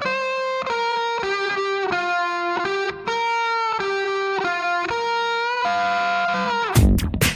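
Background music: a slow melody of long held electric-guitar notes with effects. A full band beat with drums comes in near the end.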